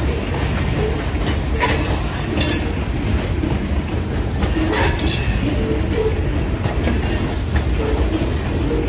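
Freight train's hopper cars rolling past close by: a steady rumble of steel wheels on the rails, with occasional short squeals and a few brief clanks.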